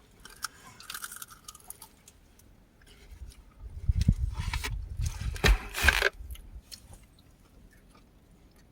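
A person eating: chewing and crunching close to the microphone, loudest about four to six seconds in.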